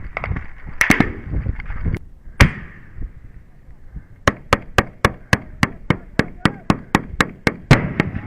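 Gunfire in combat: a couple of single shots, then a long, evenly spaced string of shots at about four a second.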